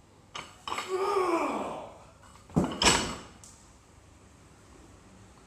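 A man's drawn-out shout that rises and then falls in pitch. About a second later come two heavy thuds a quarter second apart with a brief clanging ring: a loaded barbell's plates landing on lifting blocks.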